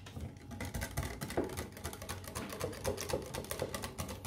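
Metal wire whisk beating a runny egg-and-cream batter in a glass bowl, the wires clicking rapidly and evenly against the glass.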